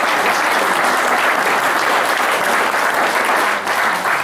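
Audience applauding steadily, dense and sustained.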